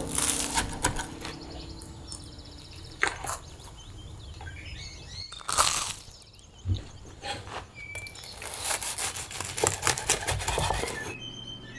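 Irregular crisp crunches and knocks, thickest in a run near the end, with birds chirping in the background.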